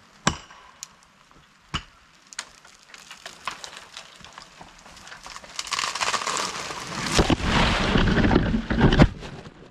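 Axe blows driving a felling wedge into an ash trunk: four sharp strikes in the first two and a half seconds. Then the tree cracks and crackles as it starts to go, building to a loud crash of breaking branches as it comes down, with a heavy thud about nine seconds in.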